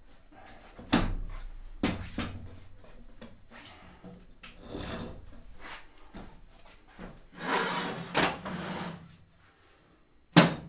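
Folding army cot's end bar popping into its leg fittings: two sharp clacks about a second apart as the last bar is forced into place, which tensions the canvas. Later comes a longer rub and rustle of the frame.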